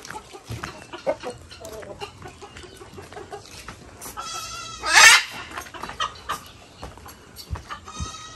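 Farmyard animals calling: chickens clucking and a goat bleating in short calls, with one loud, sharp squawk about five seconds in.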